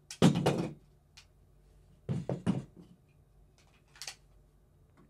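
Handling of polymer-framed FMK 9C1 pistols: a clatter of knocks as one pistol is set down on the table, a second burst of knocks about two seconds in, and a single sharp click about four seconds in.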